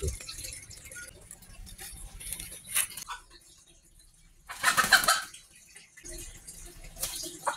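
Chicken clucking in a few short, separate calls, the loudest about five seconds in.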